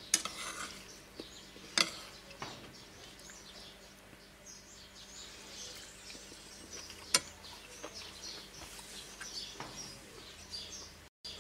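A metal spoon clinks against a ceramic bowl a few times, sharply about two seconds in and again around seven seconds, while birds chirp in the background.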